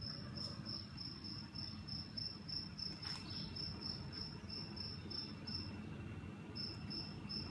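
A cricket chirping in quick, even pulses, about four a second, with a short break near the end, over a steady low rumble.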